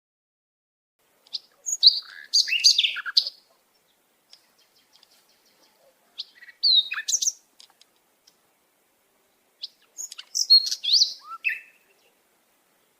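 A songbird singing three short phrases of quick, high, sliding whistled notes, with pauses between them.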